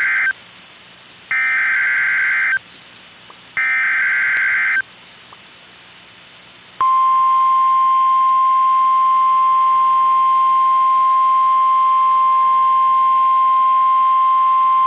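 Emergency Alert System tones from NOAA Weather Radio. The end of one SAME header data burst and then two more buzzy digital bursts, each about a second long, then about seven seconds in a long steady single-pitched Weather Radio warning alarm tone, which signals a severe thunderstorm watch.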